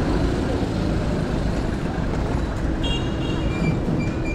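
Street traffic noise: steady, continuous vehicle sound, with a brief high-pitched beep about three seconds in.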